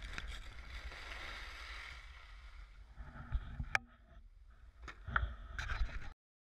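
Skis sliding and scraping over snow, with wind rumbling on an action camera's microphone and a few sharp clicks and knocks. The sound cuts off to silence about six seconds in.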